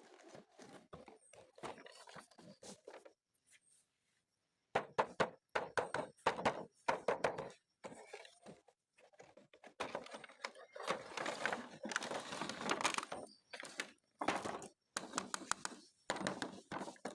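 Hands unboxing plastic toys: packaging rustling and crinkling, with many small clicks and knocks of plastic parts. There is a brief pause a few seconds in, and a long stretch of rustling in the second half.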